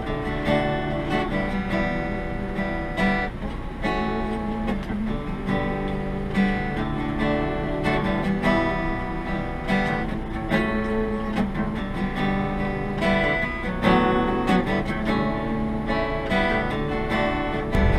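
Acoustic guitar strummed and picked, playing a steady instrumental tune.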